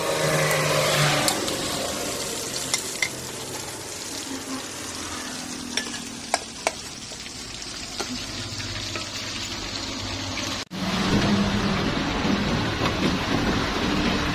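Fish frying in hot oil in an aluminium wok, sizzling steadily while a metal spatula turns it, with a few sharp clinks of metal on the pan. The sound cuts out for an instant about ten seconds in and comes back louder.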